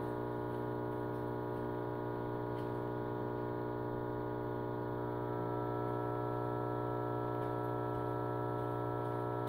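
PowerJack 15000 W split-phase inverter humming under heavy load: a steady low electrical hum with many overtones. It grows slightly louder about halfway through as the load is raised from about 18 to 21 amps.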